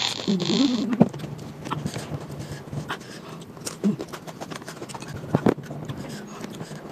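Mouth sounds of a person eating papaya rujak in spicy chili sambal. About the first second holds a hiss of breath through the teeth with a short hum. After that come chewing and wet lip smacks, with scattered sharp clicks. The hiss is the usual reaction to chili heat.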